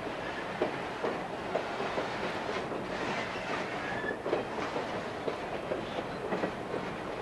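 An empty coal train rolling past, its wheels clicking over rail joints over a steady rumble.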